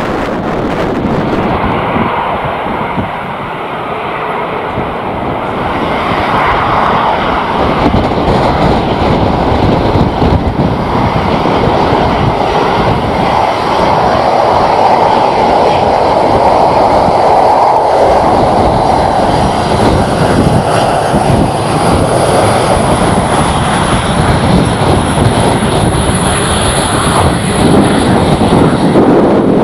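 Airliner engines, loud and growing louder from a few seconds in as the aircraft comes closer, with a thin high steady whine joining in the second half.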